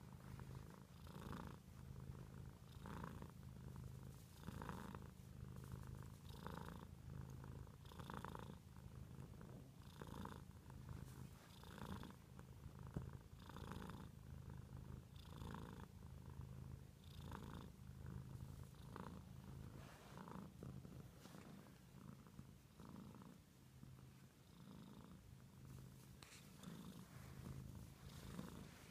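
Domestic cat purring softly and steadily, rising and falling in an even rhythm about once a second with its breaths, as it is stroked on the head.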